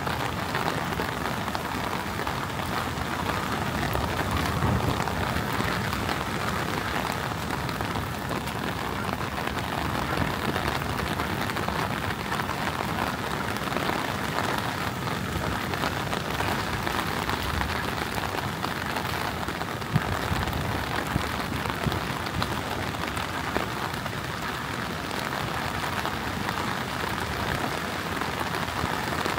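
Heavy rain falling steadily, pattering on surfaces, with one sharp tap about two-thirds of the way through.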